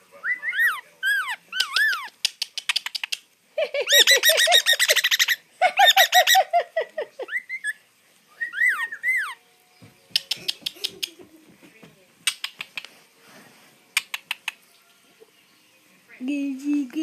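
Musk lorikeet giving short rising-and-falling chirps, then two loud bursts of rapid, pulsed squawking, its mimicry of human laughter. Scattered faint clicks and scratches follow.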